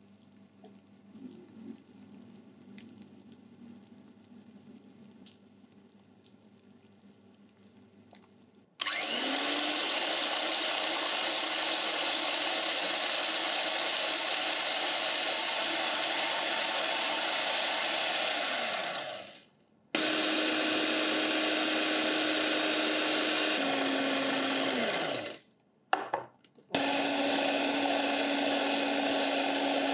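Faint bubbling of sugar syrup boiling in a stainless saucepan, then an electric hand mixer whisking egg whites at high speed with a steady motor whine. The mixer winds down and restarts, drops to a lower speed later on, stops briefly with a couple of short bursts, and runs again.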